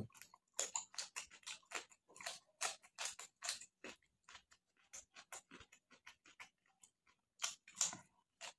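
Close-up eating sounds of a person chewing rice and chicken curry eaten by hand: rapid, irregular wet mouth clicks and smacks, with a louder cluster near the end as another handful goes into the mouth.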